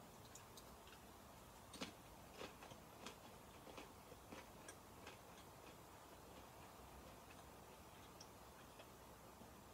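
Near silence broken by faint, irregular clicks over roughly the first six seconds: mouth sounds of someone chewing a small piece of communion bread.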